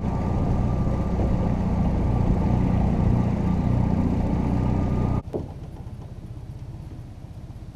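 Small boat's outboard motor running steadily under way. It cuts off abruptly about five seconds in, leaving a much quieter motor sound with an even pulse.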